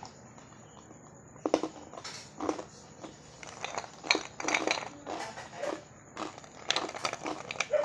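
Ice cubes being crunched and chewed between the teeth, in irregular bursts of crunching that start about a second and a half in, with ice shifting in the bowl as it is picked out by hand.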